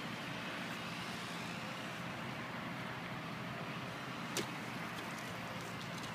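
Steady outdoor background noise, an even hiss and rumble, with one sharp click about four seconds in.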